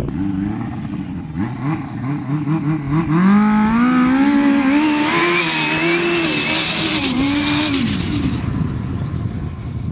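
Turbocharged snowmobile engine revving in short blips, then pulling hard as the sled launches about three seconds in. The engine note climbs and stays loud for several seconds, then eases off near the end.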